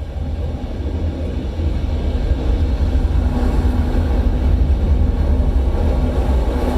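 Deep bass rumble from a Dolby Atmos demo trailer played through an LG soundbar, swelling over the first couple of seconds and then holding steady.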